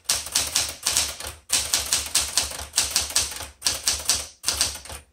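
Smith Corona Galaxie Twelve manual typewriter being typed on: a quick run of key strikes, about four to five a second, broken by two brief pauses.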